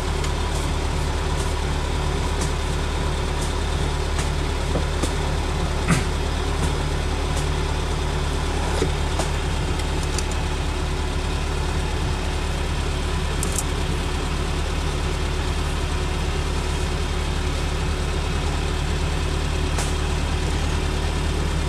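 Off-road vehicle's engine idling steadily, heard close from the hood, with a few brief faint clicks over it.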